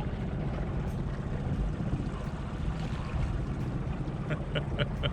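Boat's outboard motor running steadily as the boat moves over the water, with wind and water noise, and a few short sharp sounds near the end.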